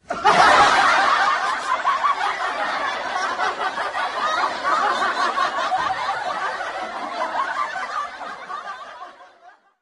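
Canned audience laughter: many people laughing together at once. It comes in loud at the start, then fades out over the last couple of seconds.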